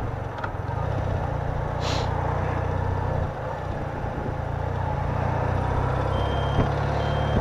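BMW R80RT's air-cooled flat-twin (airhead) engine running steadily as the bike rides slowly through town traffic, with a short hiss about two seconds in. Near the end, another vehicle's reversing beeps start.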